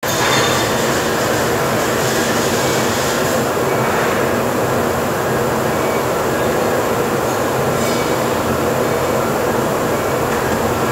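Steady, loud machine noise from a Bomar aluminium-profile saw station running, with no separate cutting strokes standing out. The noise is a little brighter for the first three seconds or so.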